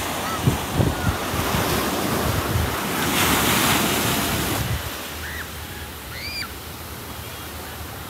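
Ocean surf washing steadily, with wind buffeting the microphone in low gusts during the first few seconds; the surf swells louder about three seconds in, then eases. A few faint high chirps come through over it.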